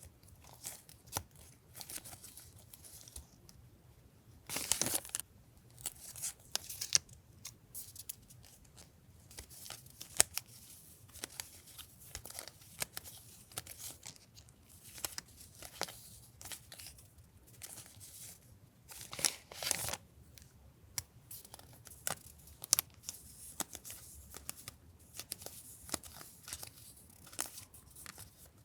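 Paper and sticker stationery handled close to the microphone: scattered light rustles and taps, with two longer, louder rustling strokes about five seconds in and again about twenty seconds in.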